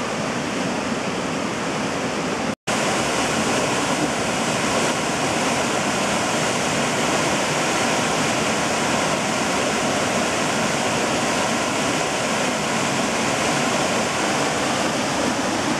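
Whitewater cascade rushing steadily over rock ledges, a loud, even roar of falling water. It drops out for an instant about two and a half seconds in and comes back a little louder.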